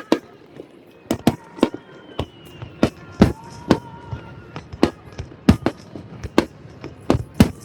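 Fireworks bursting: a run of loud, sharp bangs in irregular succession, about two a second.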